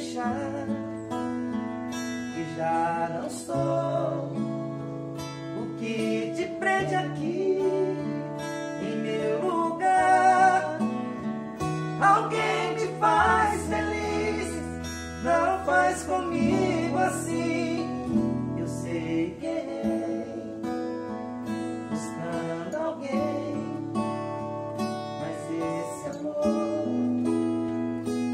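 Two acoustic guitars strummed and picked with men's voices singing along.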